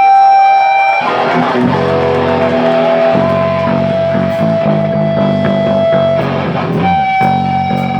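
Live rock band playing loud electric guitar and bass. A few held guitar notes ring out first, then the full band comes in about a second in.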